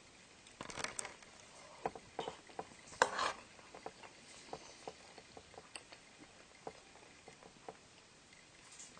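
A man eating soup at close range: irregular small clicks and smacks of eating, busiest in the first four seconds, with a louder noise about three seconds in.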